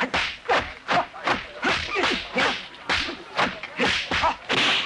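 Hong Kong kung fu film fight sound effects: a rapid run of sharp, whip-like swishes and smacks for blows and blocks, about three a second.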